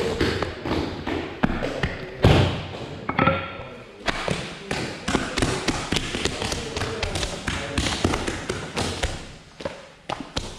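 Hands slapping, folding and pressing a sheet of varkey dough on a worktable, irregular taps and soft thuds, with people talking in the background.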